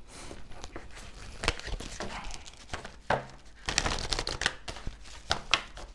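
A tarot deck being shuffled by hand, the cards bent and flicked together: irregular papery flicks and rustles, thickest about four seconds in.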